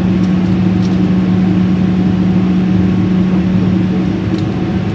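Steady cabin drone of a jet airliner in flight, heard inside the cabin beside the wing-mounted engine, with a constant low hum running through it.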